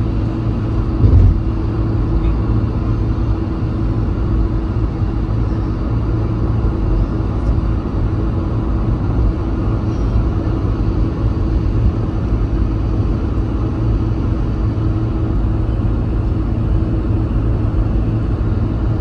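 Road noise inside a moving vehicle at highway speed: a steady low rumble of tyres and engine with a faint steady hum, and one brief thump about a second in.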